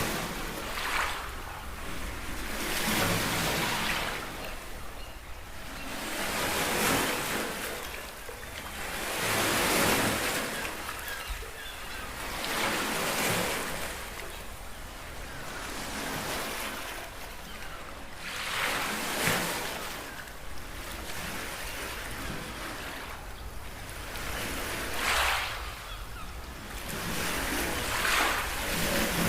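Sea waves washing and surging in swells every few seconds over a steady low rumble.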